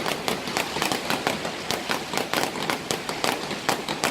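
Fireworks crackling: a dense, irregular run of sharp pops and cracks, several a second.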